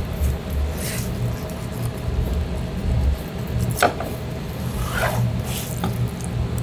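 A gloved hand presses and rubs a raw flatfish on a plastic cutting board, making soft wet squishing and a few short taps, over a steady low background hum.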